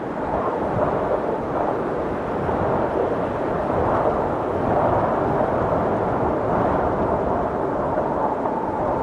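Steady rushing noise of strong wind buffeting a doorbell camera's microphone.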